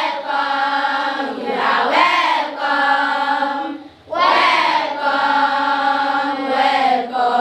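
A class of schoolchildren singing together as a group, holding long notes in phrases, with a short break for breath about four seconds in.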